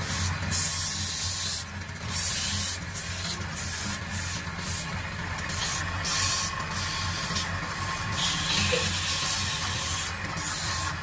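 A homemade wood lathe runs with a steady low hum while the small spinning wooden vase is worked by hand. The hand work gives a hissing scrape that comes and goes in short strokes about once a second.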